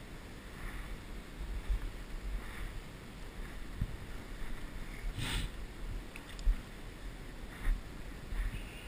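River water sloshing and lapping around a wading angler, with low rumbling buffets on the microphone. A brief louder swish comes about five seconds in.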